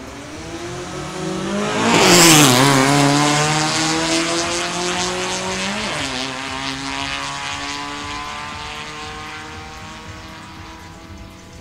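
Two drag-racing cars launching from the line at full throttle. The engines get loud about two seconds in, then rise in pitch with drops at gear changes about two and a half and six seconds in. The sound fades steadily as the cars run away down the strip.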